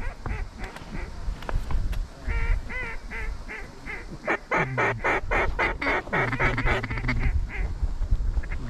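Hand-blown duck calls: scattered quacks, then a fast run of rapid calls in the second half, over low wind rumble on the microphone.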